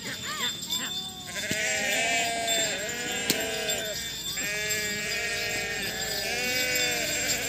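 Several men shouting and hollering at once, in drawn-out calls that rise and fall, urging on a yoked pair of bulls hauling a stone slab. There is one sharp crack about three seconds in.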